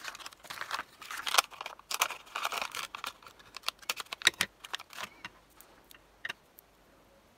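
Paper-backed sheet of adhesive foam pads rustling and crinkling as pads are peeled off it, with many small clicks and taps; the handling thins to a few scattered ticks after about five seconds.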